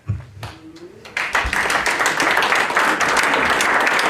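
Audience applauding: many people clapping, breaking out about a second in and then holding steady.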